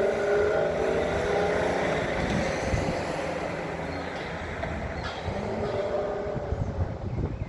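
Truck-mounted drill rig running: a steady heavy machine drone with a low rumble and a tone that sags slightly in pitch, then rises again about five seconds in.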